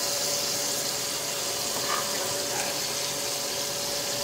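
Chicken pieces frying in oil on the stovetop, giving a steady, even sizzling hiss with a constant hum underneath.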